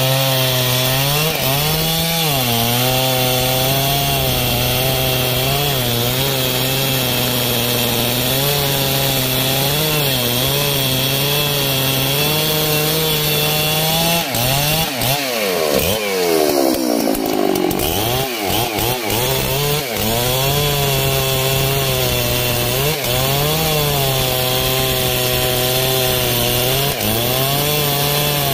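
Husqvarna 3120 XP chainsaw, a big two-stroke, running at full throttle as it cuts through a thick rain tree log, the engine note wavering as the chain bites. About halfway through, the pitch drops away and climbs back up before it settles into the cut again.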